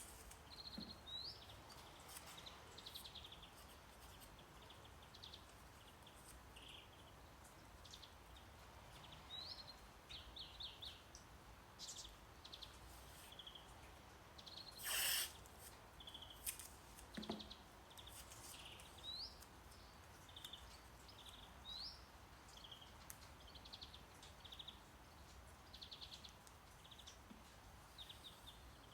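Faint background nature recording: small birds chirping, with short rising whistles and trills, over a low steady brown-noise hiss. About fifteen seconds in, a brief, louder scratchy noise stands out.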